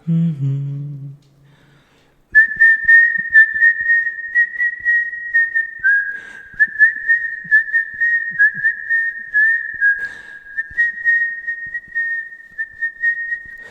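Whistled melody in a song, a single clear high line that hovers near one pitch with small slides and steps, over a faint light beat. It comes in about two seconds in, after a sung note fades out.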